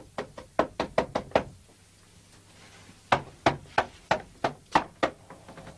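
Knocking at the gate: two runs of about seven quick knocks, the second starting about three seconds in.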